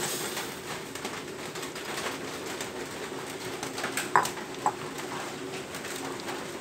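Water boiling in a stainless steel pot on a gas stove as papaya flowers are tipped in, with a low steady hum over the hiss of the boil. Two light knocks about four seconds in.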